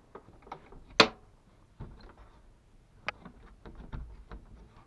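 Small metal latch on a wooden smokehouse box being undone: one sharp click about a second in, then a softer click and faint knocks of the box being handled.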